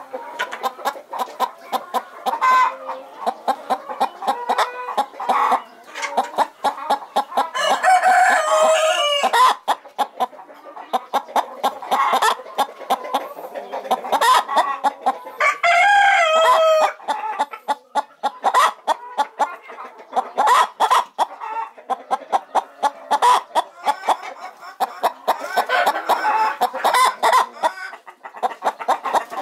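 Domestic hen on her nest, clucking over and over in short calls, with two longer drawn-out calls about eight and sixteen seconds in that drop in pitch at their ends.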